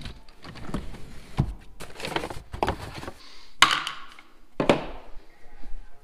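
Plastic interior trim and carpet being pulled out of a car and handled: a run of irregular knocks, clatters and scrapes, with two louder thumps about two-thirds of the way in.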